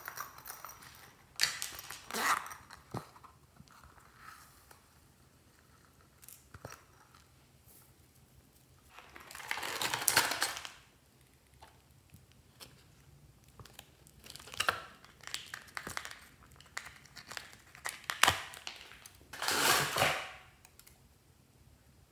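Hands handling crinkly plastic packaging and small plastic bottles: scattered crinkling rustles and sharp clicks, with two longer bursts of crinkling, the longest about two seconds near the middle and another near the end.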